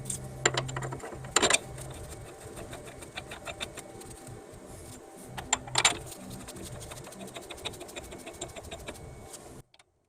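Ratchet wrench clicking rapidly as the hub bolts are run in, drawing the new front hub and bearing assembly past its O-ring into the steering knuckle, with a few sharp metal clanks. The clicking stops abruptly near the end.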